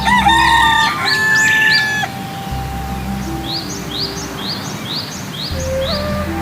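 A rooster crowing once, about two seconds long at the start, followed by a quick series of small bird chirps.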